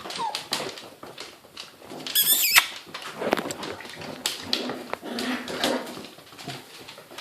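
Young puppies squeaking and whimpering, with one loud, high wavering squeal about two seconds in, amid scattered clicks and shuffling.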